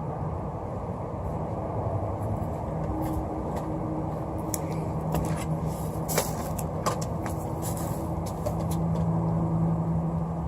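A steady low mechanical hum, like an engine running, grows a little louder in the second half. A few sharp clicks fall in the middle.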